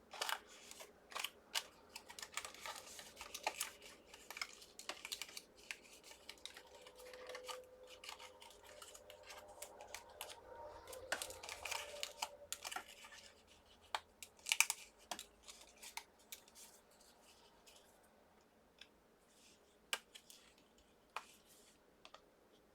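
Die-cut card stock being handled, its small cut-out pieces poked free by hand: scattered light clicks, taps and paper rustles. They come thickly for the first dozen seconds and more sparsely after that.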